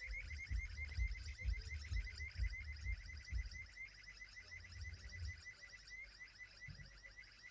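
A bottle making a weird, rapid, repeating high chirping squeak, several chirps a second without a break. Low thumps sound under it for the first five seconds or so.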